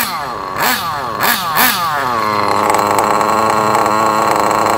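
Kyosho nitro RC buggy's small two-stroke glow engine revving in three or four quick throttle blips, then settling to a steady idle about two seconds in.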